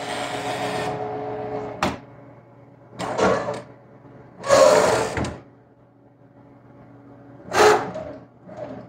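1968 Mustang convertible top's hydraulic pump motor running steadily, stopping with a click about two seconds in. Then the folding top's frame and vinyl creak and rustle in three short bursts as the top comes forward onto the windshield: squeaks the owner puts down to the new top's mechanism opening for the first time.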